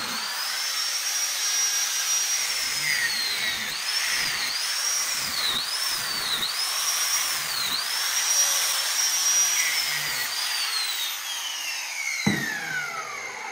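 Angle grinder with a cut-off wheel cutting through steel tabs on a motorcycle frame: a high whine that sags in pitch again and again as the wheel bites into the metal. Near the end the grinder is released and spins down, its whine falling steadily, with a single knock shortly before the end.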